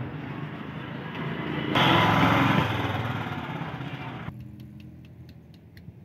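A motor vehicle engine running with a steady low hum. It grows louder about two seconds in and then fades, and cuts off suddenly past the middle, leaving faint clicks.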